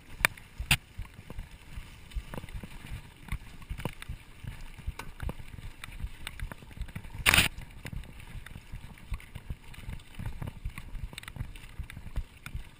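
Mountain bike rolling over a dirt singletrack, picked up through the handlebars: a steady rumble of tyres and frame with frequent small rattles and clicks, and one loud clatter about seven seconds in.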